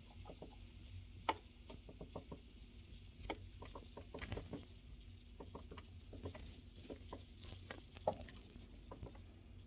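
Irregular light knocking and tapping from a couch: short knocks come in loose clusters of several a second, with two sharper, louder knocks, one about a second in and one about eight seconds in.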